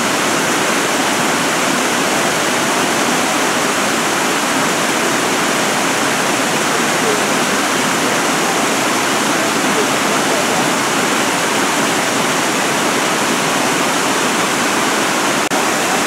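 Steady rush of water from a low waterfall spilling over rock ledges into a pool.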